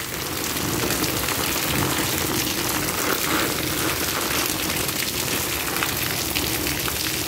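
Steady rain falling on a tiled patio: a dense, even hiss of drops striking wet tiles.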